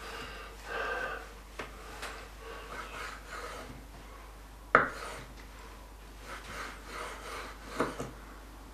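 Knife slicing thin beef steak into strips on a wooden cutting board: soft scraping strokes, with a sharp knock about five seconds in and a smaller one near the end.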